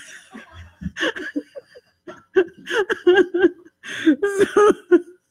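A woman laughing, in short repeated chuckles that come thicker from about two seconds in.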